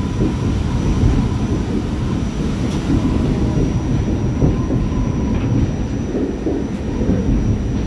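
Staten Island Railway R44 subway car running along the line: a steady rumble of wheels on rail, with a few faint clicks.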